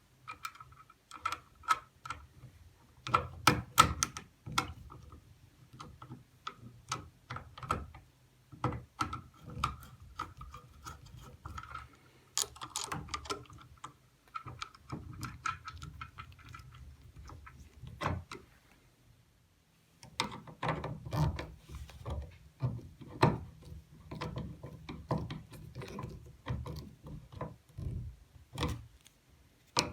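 Irregular clicks, clacks and rattles of small hardware and hand tools being worked, some in quick runs of several, with a faint hum underneath.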